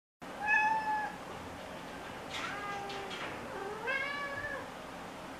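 Domestic cat meowing three times, the last meow rising and then falling in pitch.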